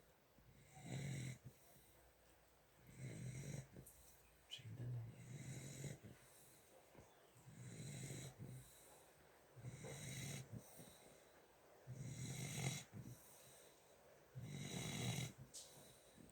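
Snoring in a steady rhythm, one snore roughly every two seconds.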